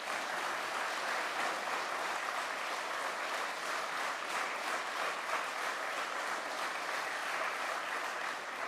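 Audience applauding: many people clapping steadily in a hall.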